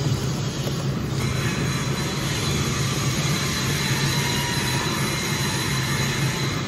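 Electric induction cooking mixer running steadily, its agitator churning thick paste around the stainless steel kettle, with a constant low hum.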